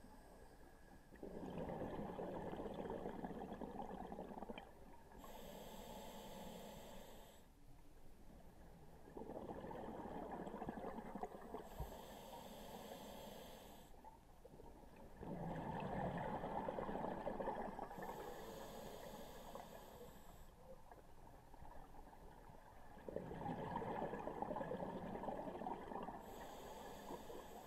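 Scuba diver breathing through a regulator: a short hissing inhale, then a longer bubbling exhale. About four breaths, one every seven seconds or so.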